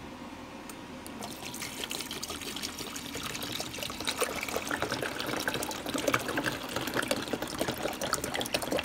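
Water pouring from an upturned plastic bottle into a drip coffee maker's reservoir, starting about a second in and getting louder.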